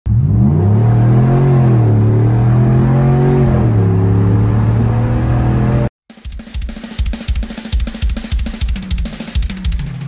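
Ram 1500 pickup's engine running under acceleration from inside the cab, its pitch rising and then stepping down about three and a half seconds in like a gear change. It cuts off abruptly near the middle, and fast heavy rock drums begin.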